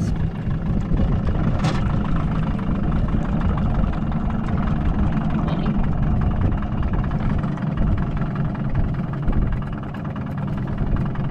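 A boat's outboard motor idling steadily, a low, even drone.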